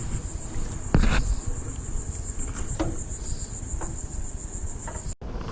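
A steady, high-pitched insect chorus, such as crickets, pulsing rapidly, with a few light knocks and low rumble. It cuts off suddenly near the end.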